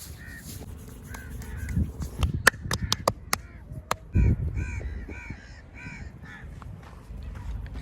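Crows cawing over and over, with a quick run of about six sharp smacks midway through and a dull thump just after them.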